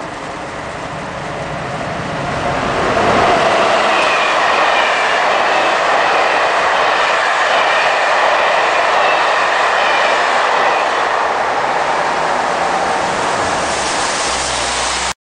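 Passenger train passing at speed: a steady rush of wheels on rails that swells about two to three seconds in, with a faint high whine over it, and cuts off abruptly near the end.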